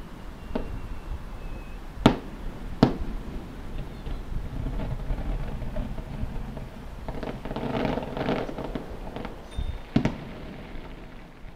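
Aerial firework shells bursting in the distance: a handful of sharp bangs, the loudest two about two and three seconds in and another about ten seconds in, with a stretch of dense crackling in between.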